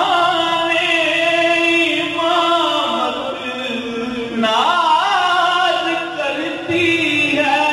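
A man singing a manqabat, a devotional praise poem, solo and without instruments, holding long notes that waver into ornamented turns.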